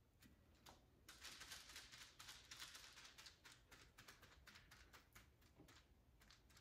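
Faint, irregular light taps and scuffs of a brush dabbing polyester resin into fiberglass mat on a tabletop, several a second.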